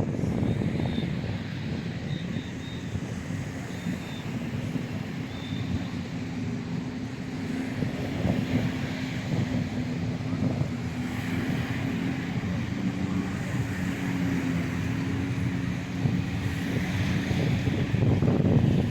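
A steady motor drone with a low, even hum, holding level for most of the stretch over a constant background rush.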